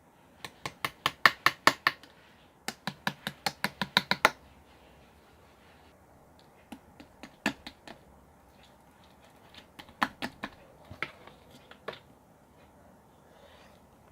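Sharp clicks in two quick runs of about eight and ten, roughly five a second, then scattered single clicks with pauses between them.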